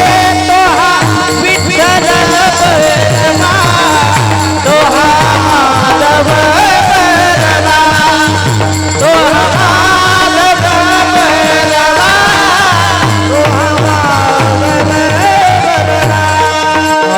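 Devotional folk song: a solo voice sings a richly ornamented melody over a steadily repeating hand-drum rhythm and long held accompanying tones.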